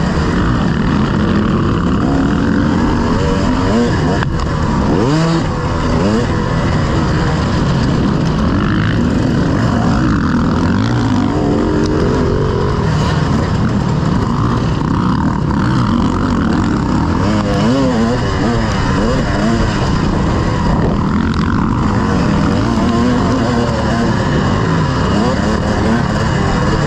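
Several motocross bikes' engines revving up and down together as they race, their pitches overlapping, rising and falling without a break.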